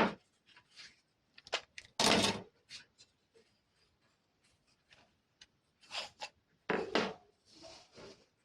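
Marble machine automaton running: marbles knocking and rattling through the mechanism in short, irregular clatters. There is a sharp knock at the start, a longer rattle about two seconds in, and more clatters around six and seven seconds.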